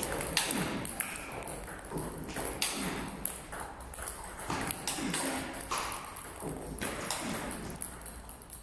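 Table tennis multiball drill: a quick run of sharp clicks as balls are struck by rubber paddles and bounce on the table, one every half second or so.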